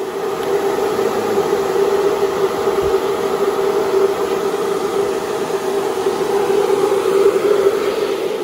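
A steady mechanical hum with a constant drone under a hiss of noise, unchanging throughout.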